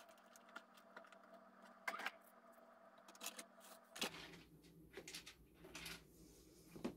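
Faint rustling and scraping of a hand stirring coconut-fibre soil in a plastic tote bin, with scattered light clicks and a few soft knocks as the bin is handled.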